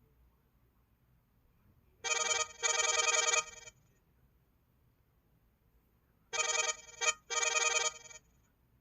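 LG-SH100 mobile phone ringtone: an electronic ring with many overtones, sounding twice about four seconds apart, each ring in two quick parts.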